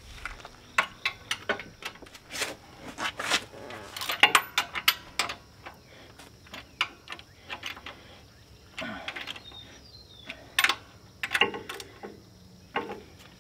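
A 3/4-inch socket wrench on the loader mast bolts, making irregular metal clicks and clinks as each bolt is checked for tightness. The bolts are found to be tight.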